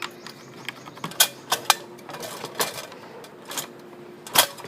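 Scattered clicks and knocks of the plastic and metal parts of a dismantled induction cooker being handled, over a faint steady hum.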